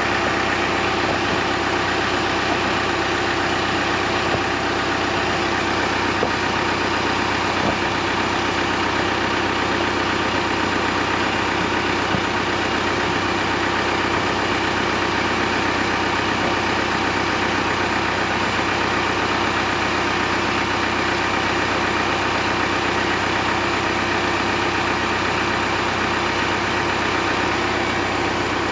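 John Deere compact utility tractor's engine idling steadily.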